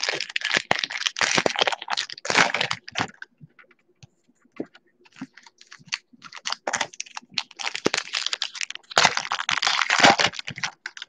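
Trading card packs being torn open by hand, the wrappers crinkling and crackling while the cards click and rustle against each other. The handling comes in dense spells during the first three seconds and again from about six seconds to near the end, with scattered clicks in between.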